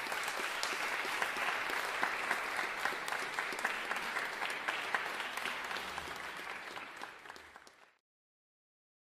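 Audience applauding after a live performance: dense clapping that tapers off after about six seconds and cuts off suddenly near the end.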